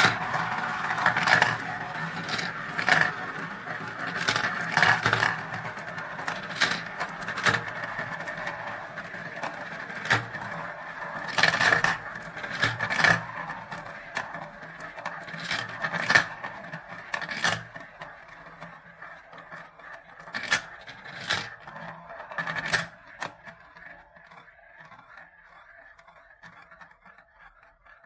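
Marbles rolling around clear plastic marble-run funnel bowls, a continuous rolling rattle broken by frequent sharp clicks as they hit one another and drop into the tubes. It thins out and fades over the last several seconds as fewer marbles are left circling.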